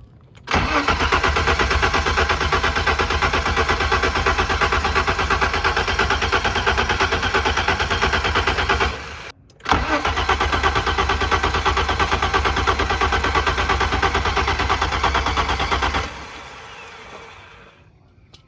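Starter cranking the BMW E30's 2.7-litre stroker M20 inline-six, which has no working fuel pump and is being fed only a squirt of spray in the intake. There are two long bursts of even, rhythmic cranking with a brief break between them, and the sound fades away near the end.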